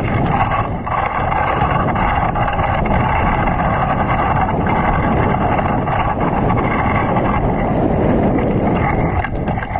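Dog sled moving over a snowy trail: a steady rushing noise of the runners sliding on snow mixed with wind on the microphone, with faint small knocks and rattles from the sled.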